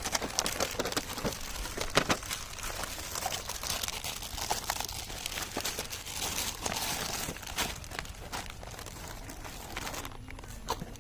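Toy packaging crinkling and rustling as it is unwrapped by hand, with many small crackles and a sharper snap about two seconds in.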